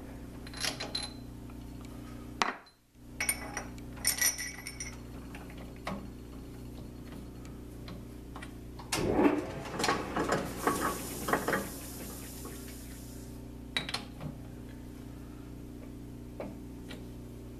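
Steady electrical hum of a running rotary phase converter, with metal tools clinking and clattering against the lathe. A burst of clatter about nine seconds in is followed by a high hiss lasting about three seconds.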